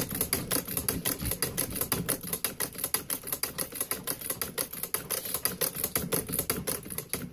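Singer 29-4 treadle patcher sewing through a leather work boot. Its needle and walking foot clack in a quick, even run of stitches as a seam at the ankle is restitched.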